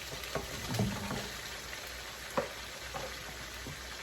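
Chicken sautéing and sizzling in hot oil in a pan, a steady hiss with a few sharp clacks of a utensil stirring against the pan, the loudest about two and a half seconds in.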